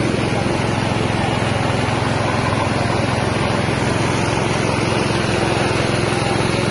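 Mini rice milling machine running steadily, driven by its small 6.5 hp engine.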